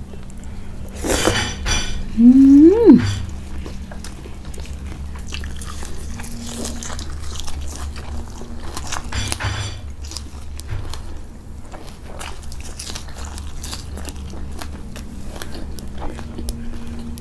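Close-up mukbang eating: a person bites into a sauce-coated shrimp and chews with wet, crackly mouth sounds and smacks. About two seconds in comes a short hummed "mmm" that rises and then falls. A steady low hum runs underneath.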